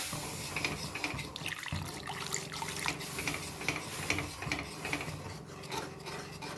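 Hand whisk stirring and scraping in a pan as milk is whisked into a butter-and-flour roux for white sauce, with a wet, sloshing scrape.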